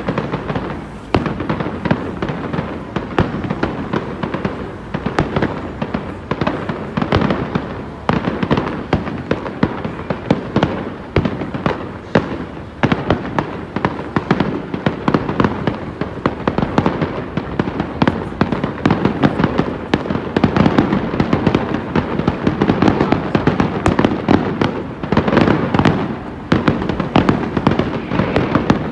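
Fireworks display at full tilt: a dense, continuous barrage of bangs and crackles, several bursts a second with no let-up.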